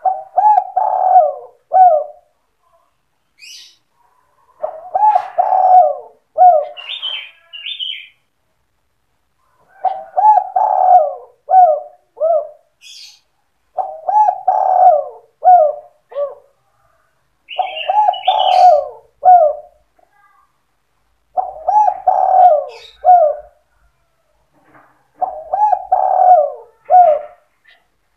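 Spotted dove (tekukur) cooing loudly in the 'sandung kuk 2' style used as a lure call: seven repeats of the same phrase, a run of several coos lasting about two seconds, each about every four seconds. A few short, high chirps from a smaller bird come between the phrases.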